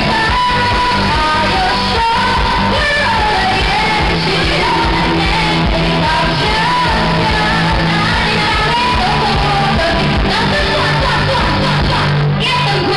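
Loud live stage-band music with a sung melody over a steady driving beat.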